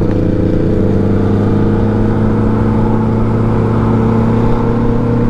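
2023 Kawasaki ZX-10R's 998 cc inline-four engine running at a steady cruise in top-gear highway riding, its note holding level, with wind noise over it.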